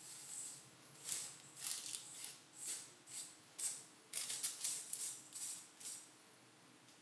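Paper rustling in about a dozen short, crisp bursts, coming faster and closer together from about four to six seconds in.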